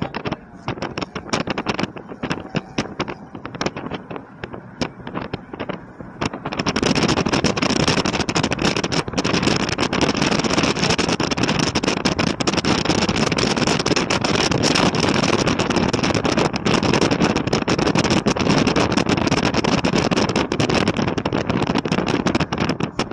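Wind and road noise of a moving vehicle, with wind buffeting the microphone: gusty and crackly at first, then much louder and a steady rush from about six and a half seconds in.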